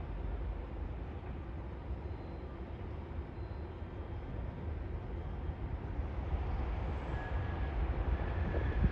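A train running off over the station tracks and points, heard as a steady low rumble that grows a little louder near the end, with a faint thin high-pitched squeal from about seven seconds in.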